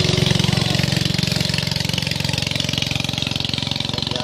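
A small boat engine running steadily and close, with a fast, even beat.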